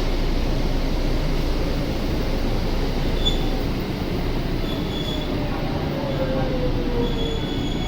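Train running along a station platform, a steady rumble with faint high wheel squeals from partway through and a tone sliding downward near the end.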